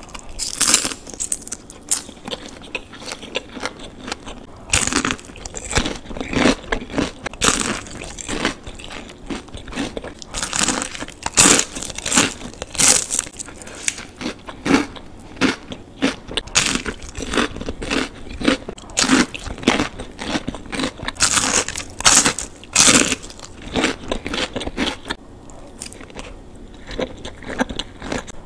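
Eating sounds: crisp crunching bites into fried tempura shrimp batter and chewing of sushi, many sharp crunches in quick succession, thinning out near the end.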